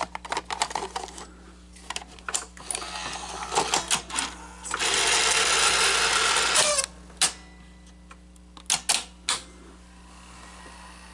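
Sony SL-5000 Betamax VCR mechanism being worked: a run of clicks and clunks, then about two seconds of loud steady mechanical whirring, then a few sharp clicks, as the tape is loaded and the machine is brought into playback after new belts were fitted.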